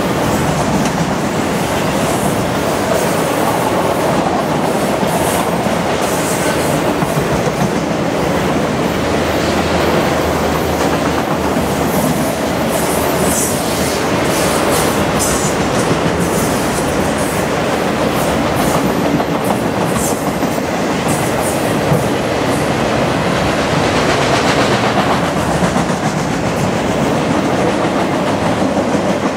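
Enclosed autorack freight cars rolling past close by: a loud, steady rumble of steel wheels on rail, with scattered short, sharp high-pitched clicks in the middle stretch.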